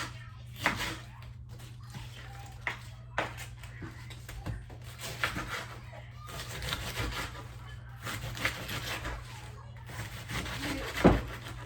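Kitchen knife cutting cabbage on a cutting board: irregular crunching chops and knocks, one to three seconds apart, with the loudest knock near the end, over a low steady hum.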